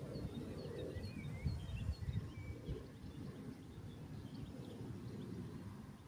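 Small birds chirping, short high notes repeated about twice a second and then scattered, over a low uneven rumble of wind on the microphone.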